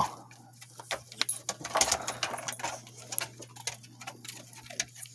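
A Lapponian Herder crunching a small treat, then its claws clicking on wooden deck boards as it walks: a string of quick, uneven ticks.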